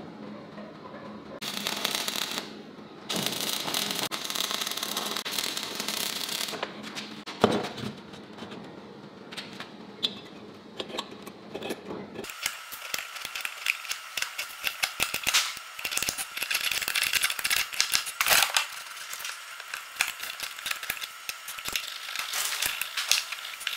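Steel plate being hand-sanded on sandpaper, heard as two stretches of steady rasping strokes in the first few seconds. Later a scriber scratches along the base of a square steel tube onto a steel plate, giving many short scrapes and clicks.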